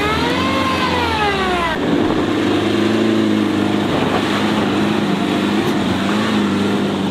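Tata Harrier's diesel engine working under load off-road, its pitch swinging up and down for the first couple of seconds, then an abrupt cut to a steadier engine drone over a rushing noise of tyres and sand.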